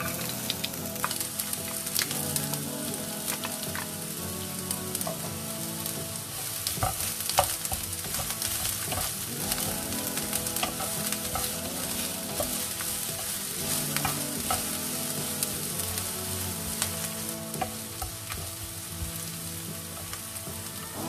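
Sliced red onions sizzling in hot oil in a nonstick frying pan, the sizzle starting suddenly as they drop in, with a wooden spatula stirring them and knocking against the pan now and then.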